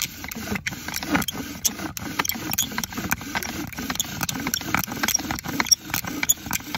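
Cedar bow-drill spindle rubbing in an alder hearth board as the bow is sawn back and forth: a rhythmic grinding whose pitch rises and falls with each stroke, with sharp clicks from the bow, cord and spindle.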